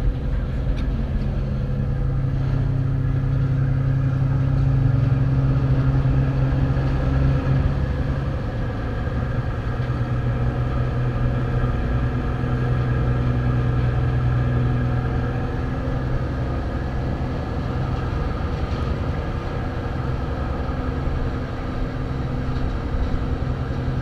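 A car ferry's engines running steadily under way: a constant low hum with several steady higher tones above it.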